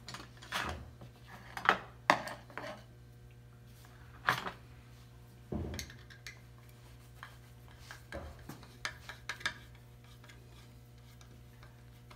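Hand tools clinking and knocking on a wooden workbench as they are picked through and a wooden half-hull model on its plywood board is handled, in irregular separate knocks. A steady low hum runs underneath.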